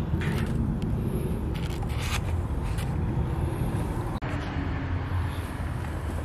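Steady low background rumble with a few faint light clicks.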